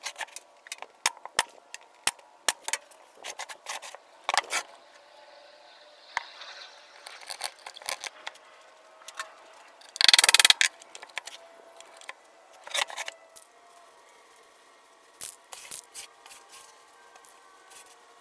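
Sharp clicks and knocks, several a second at times, from a pneumatic nail gun and a hammer nailing together a wooden birdhouse. The loudest is a dense burst of knocking about ten seconds in.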